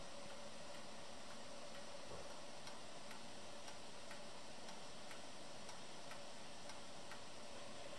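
Wooden pendulum wall clock ticking evenly, about two ticks a second, over a steady background hiss.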